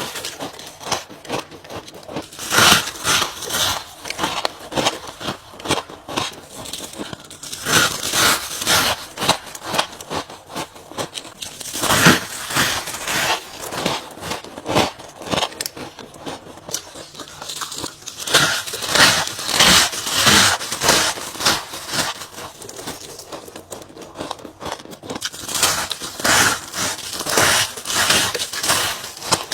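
Ice being bitten and crunched between teeth close to the microphone: clusters of sharp cracking crunches, with short lulls between them.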